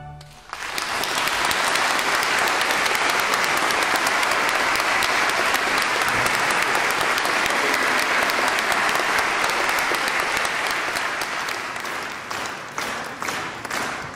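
Audience applauding in a dense, steady ovation that starts about half a second in. Near the end it thins out into separate claps.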